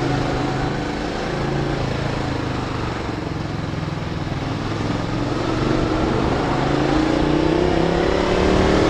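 Honda VTR250's V-twin engine running while riding, with wind rushing over the microphone. About halfway through, the engine's pitch starts climbing steadily as the bike accelerates.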